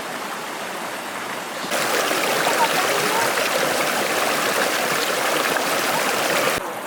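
Water rushing steadily in a stream. It jumps abruptly louder and brighter a couple of seconds in, then drops back suddenly just before the end.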